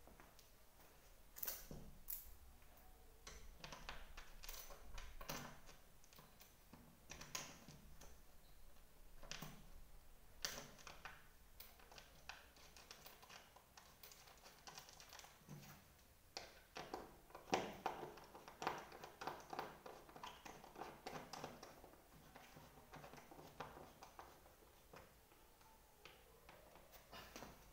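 Irregular light taps, clicks and scrapes of hand work on the plastic seat base of an office chair, a brush and small tool knocking against it, thickest about two-thirds of the way through.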